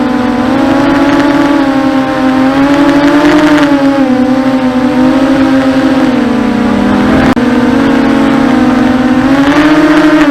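250-size racing quadcopter's electric motors and propellers whining, the pitch rising and falling with the throttle. The pitch sags about six to seven seconds in, then climbs again after a brief click.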